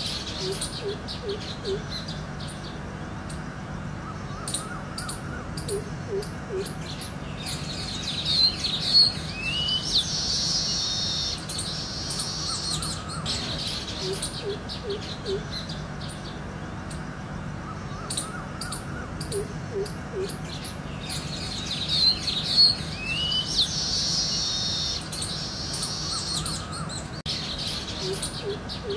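Mixed birdsong: many high chirps and trills, with a low call of three or four quick notes coming back every several seconds. The same passage repeats about fourteen seconds on, as a looped nature ambience does.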